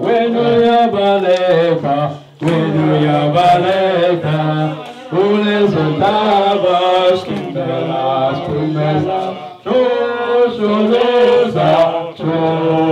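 A group of people singing a chant-like song together, with held notes and no pauses.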